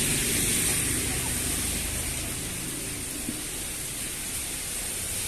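Steady background noise with a faint low rumble and no distinct events.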